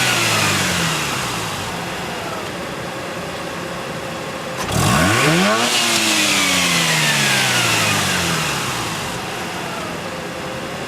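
Mazda RX-8's twin-rotor Wankel rotary engine with the car standing: the revs fall away to idle, then it is blipped once sharply about four and a half seconds in and winds slowly back down to idle.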